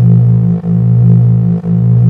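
Electronic synthesizer drone music: a loud, low sustained tone that dips briefly about once a second, giving a slow steady pulse.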